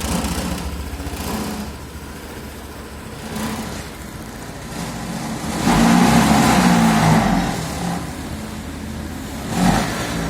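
Honda PCX150 scooter's single-cylinder engine running, revved up for a couple of seconds a little past halfway and blipped again near the end. It runs without the rod-knock-like noise, which came from a loose, clogged catalytic converter that has now been replaced with a new exhaust.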